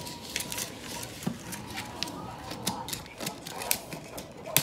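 Gift wrap being torn open: irregular crackling and ripping, a quick run of sharp crackles several times a second with a louder rip near the end.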